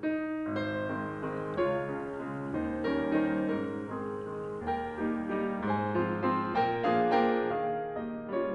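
Background piano music: a melody of separate notes over held bass notes.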